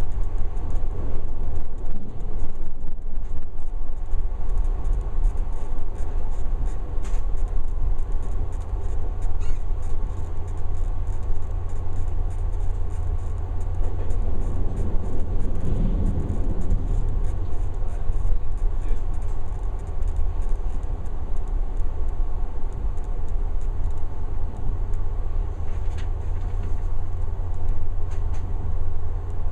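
383-series electric limited express train running, heard from inside the front car: a steady low rumble of wheels on rail. It grows louder and fuller for a few seconds about halfway through as the train crosses a steel girder bridge.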